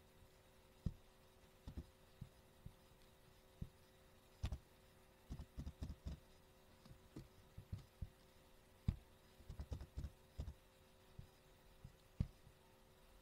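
Faint, irregular computer keyboard keystrokes and clicks as code is edited, some single and some in quick runs of several.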